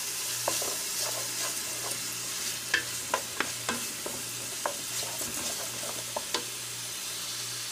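Diced charque, tomato, garlic and onion sizzling in oil in a metal pot, browning. A wooden spoon stirs through it, scraping and ticking sharply on the pot bottom now and then.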